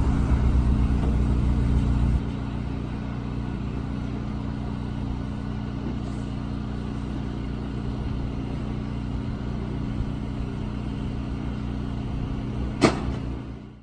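An engine running steadily at idle, its hum dropping in level about two seconds in, with a single sharp knock near the end.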